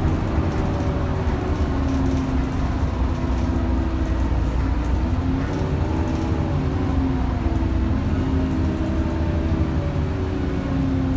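Alexander Dennis Enviro 400 double-decker bus under way, its diesel engine and ZF automatic gearbox giving a steady low drone whose pitch rises and falls several times as the bus changes speed and gear.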